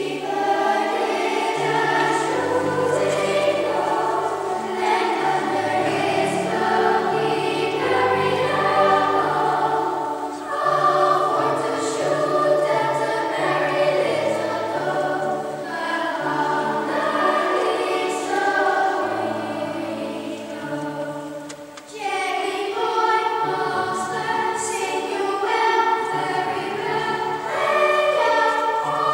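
Children's choir of young girls singing over low held bass notes, with a short break between phrases about two-thirds of the way through.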